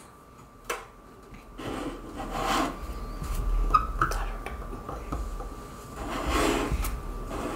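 A pointed excavation tool scraping and rasping at a hard fossil dig brick, in uneven strokes that start about a second and a half in. A light click comes just before the scraping.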